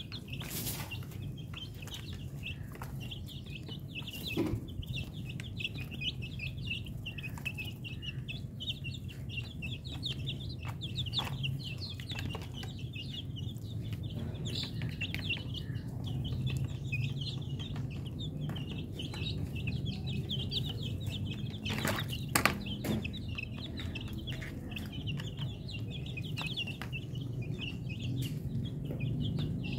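Young chickens peeping and chirping continuously in a busy, overlapping chorus over a low steady rumble, with a few sharp taps, the loudest about three quarters of the way through.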